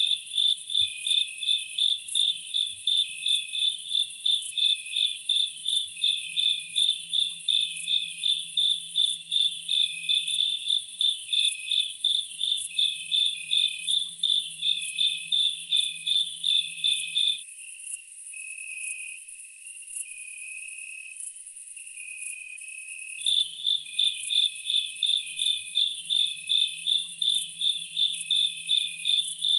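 Insects chirping in a steady pulse, about two to three chirps a second, over a continuous high-pitched trill. The pulsed chirping stops for several seconds past the middle, then resumes.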